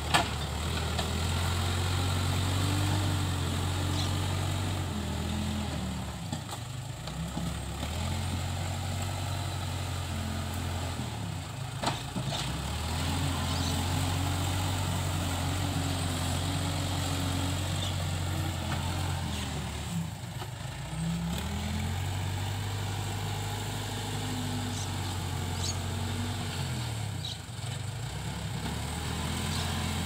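Case 580K backhoe loader's diesel engine working, its note rising and falling in repeated cycles as it works, with short easings every six to eight seconds.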